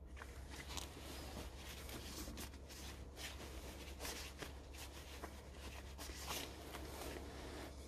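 Faint rustling and rubbing of a cloth and cloth work gloves as a steel angle block is wiped off, with scattered soft clicks of the handling.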